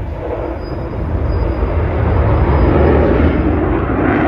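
Fighter jet's engine noise from an air show display, a rumbling roar that swells to its loudest about three seconds in and eases slightly near the end.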